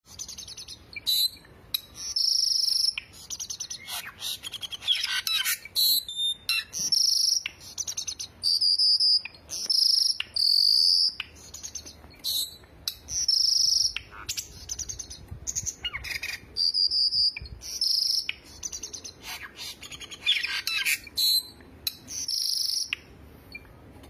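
Caged cucak birds (cucak jenggot, cucak cungkok and cucak keling) singing: loud, high whistled notes about a second long, repeated many times, with fast buzzy chattering between them.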